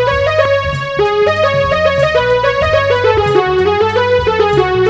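Background music: a bright electric piano or synthesizer melody of quick, short notes over a steady bass line.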